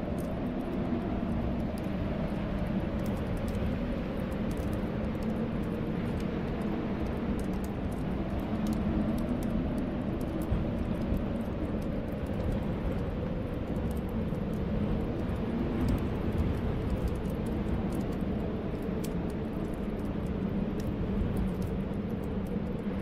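Snowstorm wind blowing steadily with a low, wavering whistle, over the faint scattered crackle of a wood fire in a fireplace.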